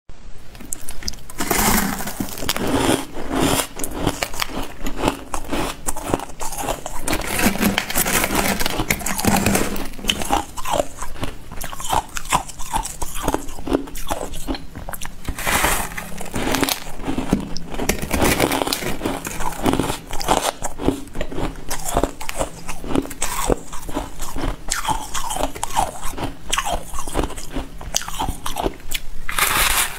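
A person biting and chewing ice close to the microphone: a dense, continuous run of sharp crunches and cracks.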